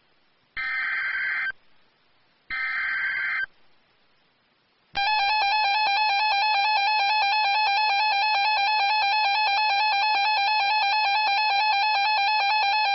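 Emergency Alert System SAME header: two one-second bursts of buzzing digital data about two seconds apart. They are followed, about five seconds in, by the EAS two-tone attention signal, a loud steady electronic tone that announces the next severe thunderstorm warning.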